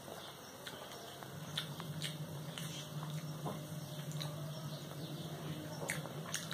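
Quiet eating sounds: chewing and fingers working rice on plates, with a few scattered small clicks over a low steady hum.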